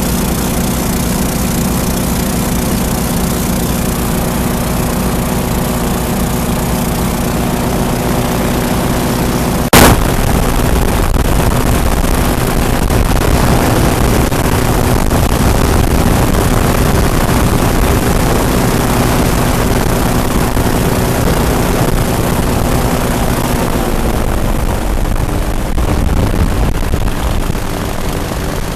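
Twin-engine airboat running under way, its engines and propellers droning steadily. There is a single sharp crack about ten seconds in, and the engine note shifts near the end.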